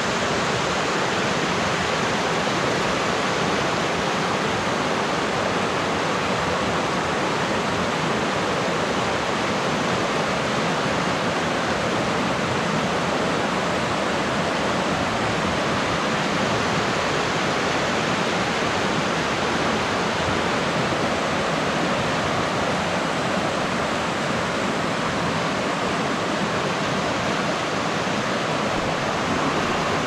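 Mountain stream rushing over rocks and through small rapids: a steady, even rush of water.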